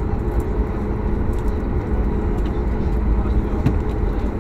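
Steady interior noise in the cabin of a Boeing 737 MAX 8 airliner: a deep, even rumble with a constant hum running through it.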